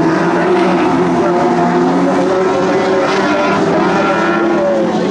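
Engines of several Lightning Sprint cars racing together on the dirt track, a loud steady mix of high revs with some pitches rising and falling as the cars go through the turn.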